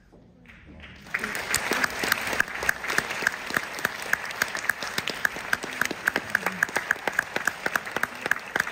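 Audience applauding, beginning about a second in. One pair of hands near the microphone claps steadily about three times a second over the rest of the applause.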